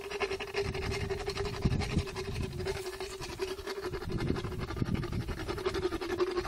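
Motorized equine dental float running steadily with a constant hum and a rasping grind as it files down a horse's molars.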